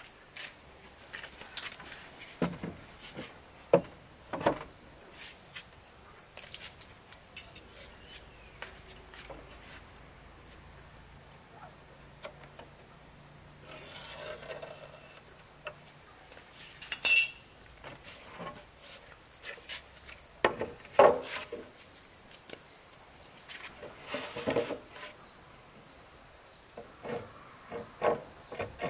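Insects chirring steadily at a high pitch, with scattered sharp knocks and clatters of wooden boards being handled and set down on a wooden bed frame; the knocks are the loudest sounds.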